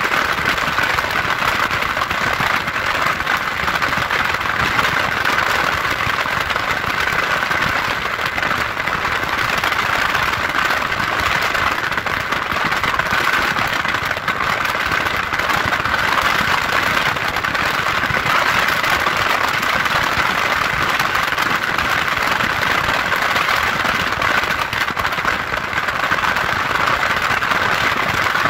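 Steady engine and road noise of a vehicle being driven, an even rushing sound with no change in pitch or level.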